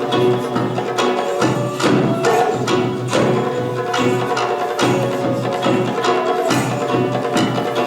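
Music from a Japanese taiko drum show: sharp, woody percussion strikes land roughly once or twice a second over sustained pitched tones.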